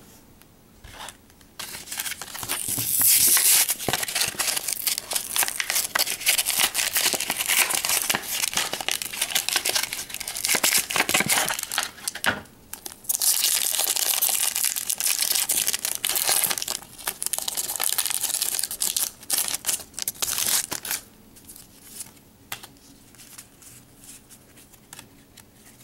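Packaging of a Pokémon booster blister pack being torn open and crinkled: long stretches of crackly plastic and foil crinkling, with a brief pause about twelve seconds in. About twenty seconds in it dies down to light, scattered handling noises.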